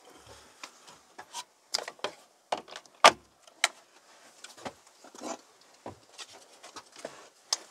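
Solar-panel cables being handled and their plug connectors pushed into a Hoymiles HM-600 microinverter: an irregular run of sharp plastic clicks and knocks with cable rustling between them, the loudest knock about three seconds in.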